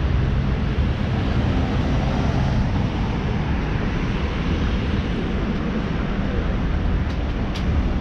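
Street traffic: cars driving past, a steady rumble of engines and tyres.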